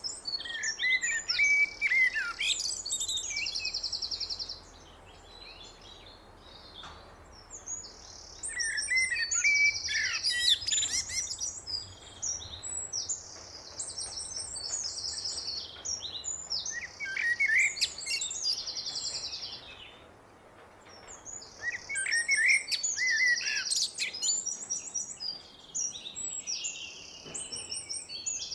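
Blackbird singing: phrases of warbling notes ending in high, rapid trills, repeated with short pauses between them.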